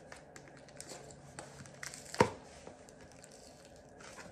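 Stiff cardboard box being pried and torn open by hand, with scattered small crackles and one sharp snap about two seconds in.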